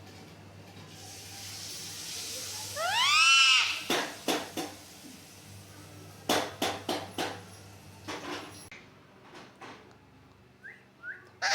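A parrot gives one loud call that rises and falls in pitch about three seconds in, then a few clusters of short, sharp squawks. Two faint short chirps come near the end.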